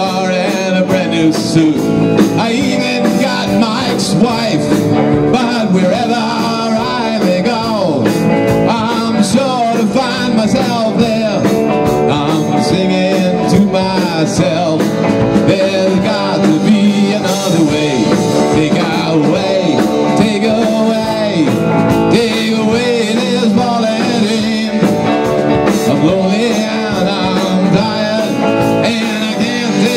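A live rock band playing with a male lead vocal: two electric guitars, a Telecaster-style and a Les Paul-style, over a Tama drum kit.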